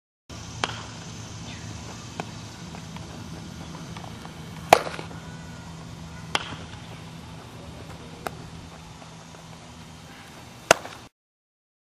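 Six sharp cracks a second or two apart during baseball infield practice: a bat hitting ground balls and balls smacking into leather gloves, the loudest about four seconds in and near the end. A steady low hum lies underneath.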